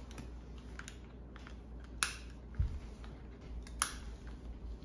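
Schroth racing harness metal latch plates and buckle clicking as the belts are fastened: a small click early, two sharper clicks about two and four seconds in, and a dull thump in between.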